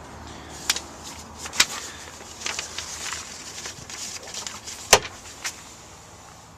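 Scattered clicks and knocks of a pickup truck's hood being released and opened, with one sharp, loud click about five seconds in.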